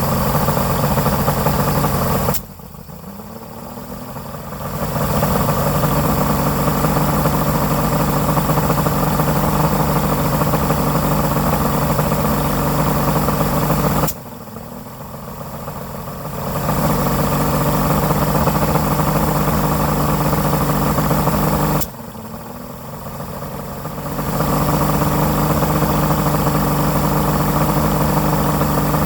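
Johnson 225 Ocean Runner V6 two-stroke outboard running, sneezing three times: each time the engine note cuts out suddenly and then climbs back up over about two seconds.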